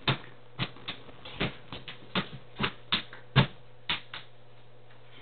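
Irregular sharp taps and knocks, about a dozen, ending a little over four seconds in.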